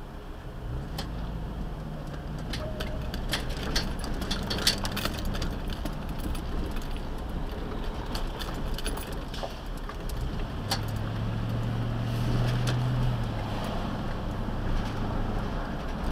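A car driving, heard from inside the cabin: a steady low engine and road rumble, with a stronger low engine hum for a few seconds about ten seconds in. Sharp clicks and jingling rattles come in a cluster over the first few seconds as it crosses the rough, torn-up road surface, and once more later.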